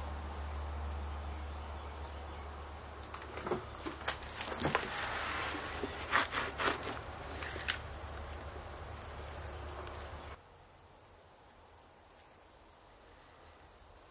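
Scattered footsteps and small knocks and crunches of debris underfoot, faint, over a low steady hum that cuts off suddenly about ten seconds in.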